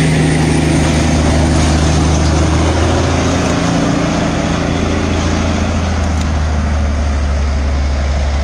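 A vehicle engine running steadily, a low drone that drops slightly in pitch about three seconds in.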